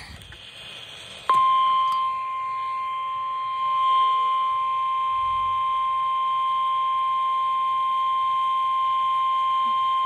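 NOAA Weather Radio 1050 Hz warning alarm tone from a weather-band radio's speaker: one steady high tone that starts abruptly about a second in and holds for about nine seconds. It is the test of the alarm signal that switches on specially built weather receivers.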